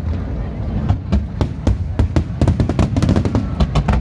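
Fireworks bursting: a rapid series of sharp bangs and crackles over a low rumble, coming thicker in the second half.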